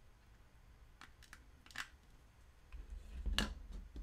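Light clicks and taps of 3D-printed plastic parts and a screwdriver being handled on a work table: a few faint clicks in the first two seconds, then a sharper click about three and a half seconds in, over a low bumping of the table.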